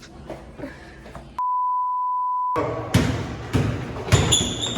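A censor bleep: one steady, high beep lasting about a second, starting about a second and a half in, with everything else muted under it. After it comes a run of heavy thuds about half a second apart.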